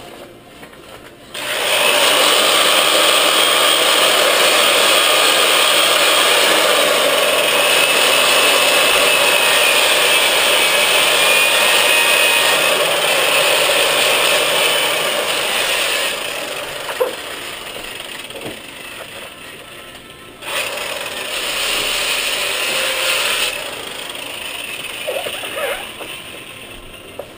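Milwaukee 5540 sander/polisher with a foam power pad and sandpaper disc sanding the fibreglassed epoxy surface of a surfboard: a loud motor whine with the rasp of the abrasive. It starts about a second in and runs hard for about fifteen seconds, then goes softer, stops briefly, runs hard again for about three seconds and eases off near the end.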